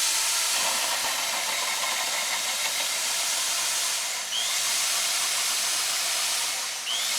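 Electric drill running steadily, boring into wood with a self-feeding auger bit, with a brief dip about four seconds in before it carries on.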